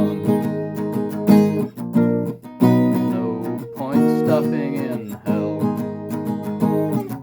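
Acoustic guitar strummed in a steady rhythm, with a strong chord stroke about every second and a quarter.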